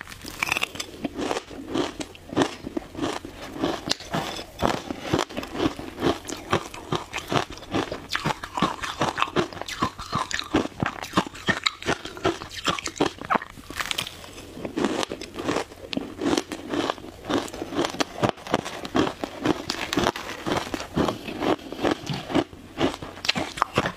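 Matcha-flavoured shaved ice being bitten and chewed: a steady run of sharp crunches, several a second.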